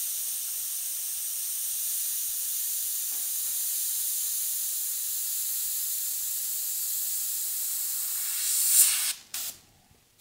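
Iwata HP-CS Eclipse gravity-feed airbrush spraying opaque white paint: a steady high hiss of air. It swells briefly just before nine seconds in, then cuts off abruptly.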